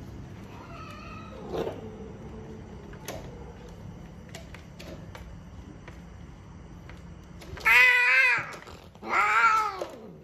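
A queen in heat being mated, giving her mating cry: a short, fainter call about one and a half seconds in, then two loud, wavering yowls near the end, each about a second long.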